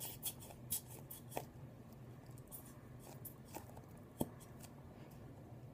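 Faint, scattered clicks and taps of small plastic paint bottles being handled and worked at by hand.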